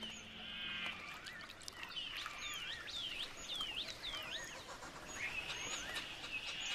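Birds calling outdoors: a run of short swooping chirps repeated about three times a second through the middle, with thin high calls, and a steady high buzz joining near the end.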